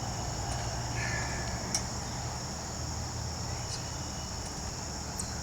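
Steady high-pitched chorus of insects such as crickets, with a low rumble underneath and a few faint clicks.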